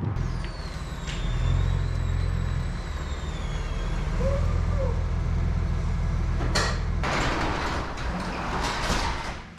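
Tow vehicle driving with the pop-up camper in tow: a steady low engine and road rumble, with a couple of short rushes of noise near the end.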